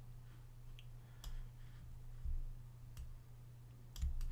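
A few faint, scattered computer mouse clicks, about three over four seconds, with a couple of soft low thumps, over a steady low hum.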